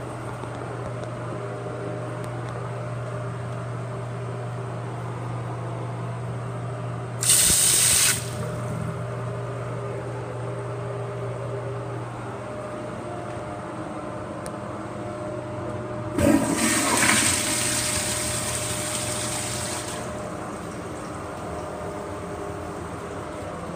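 A tank toilet flushing: a sudden loud rush of water about 16 seconds in that runs for about four seconds and then falls away, over a steady low hum. A shorter, loud rush of about a second comes earlier, about 7 seconds in.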